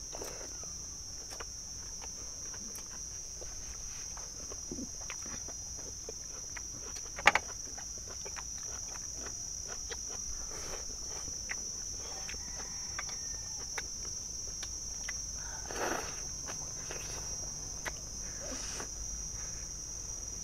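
Insects chirring steadily at a high pitch, under scattered small clicks of chopsticks and spoons against steel bowls and the noises of eating. One sharp clink about seven seconds in is the loudest sound.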